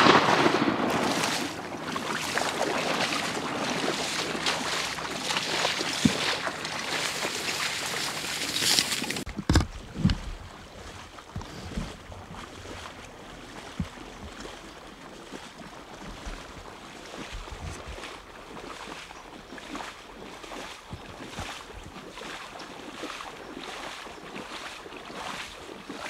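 Water sloshing and splashing as a person wades through shallow marsh water in waders: dense and loud for about the first nine seconds, then quieter, with separate sloshing steps and a few low thumps.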